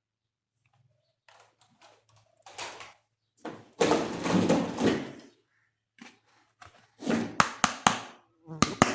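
Plastic toys and packaging being handled: scattered light clicks, a louder stretch of rustling in the middle, then a quick run of sharp plastic clicks and knocks near the end.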